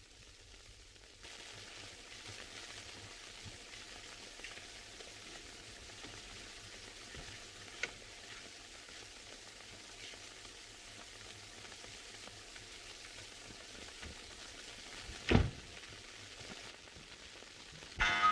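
Steady hiss and crackle of a 1931 optical film soundtrack, with no other sound for long stretches. A faint click comes about eight seconds in and a single sharp knock about fifteen seconds in. A loud pitched sound starts right at the end.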